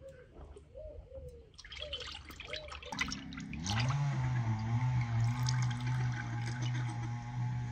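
Cooking oil poured from a glass jar into a pot, the stream trickling and splashing into the oil. A steady low hum begins about three and a half seconds in with a short rise in pitch and then holds under the pour; bird calls and a few clatters come before it.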